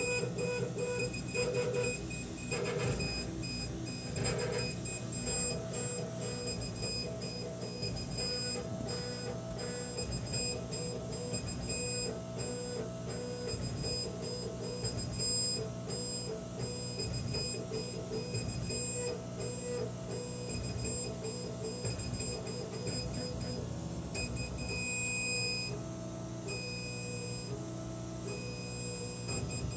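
K40 CO2 laser cutter at work: the head's stepper motors whine in short, stop-start pitched runs as it traces the finger-joint outlines, over a steady machine hum.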